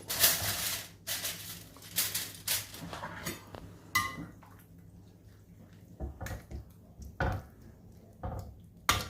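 Kitchenware being handled: a casserole dish and utensils clattering, with rustling, knocks, a brief ringing clink about four seconds in and a sharp knock near the end.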